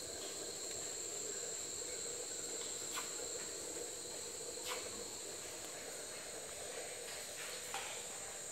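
Steady, high-pitched drone of insects such as crickets or cicadas, the background of a tropical forest, with a few short clicks scattered through it.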